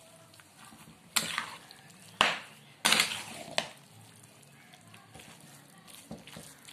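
Metal spoon stirring a thick mash of rice, toor dal and vegetables in an aluminium pressure cooker: soft scraping with four sharp clinks of spoon against pot in the first four seconds.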